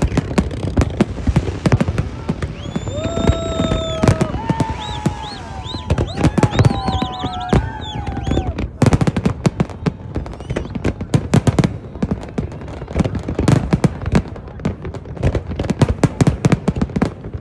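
Fireworks display: a dense, rapid run of bangs and crackles, with several whistling tones sounding together for a few seconds, from about two to eight seconds in.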